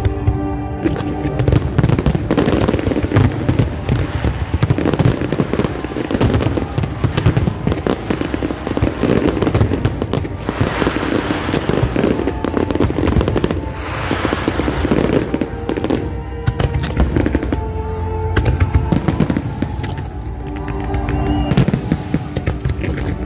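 Fireworks display: a dense, continuous run of bangs and crackles, heaviest about ten to sixteen seconds in, with music playing alongside.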